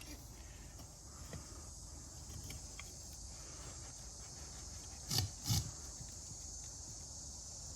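Excavating a lost foam copper casting from its sand: faint scraping and ticking, with two sharp knocks about five seconds in, half a second apart, over a steady high hiss.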